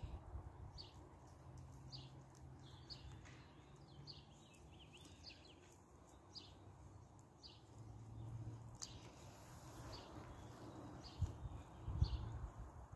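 Faint outdoor ambience: a bird chirping in short, high notes repeated about once or twice a second, over a low rumble, with a couple of soft thumps near the end.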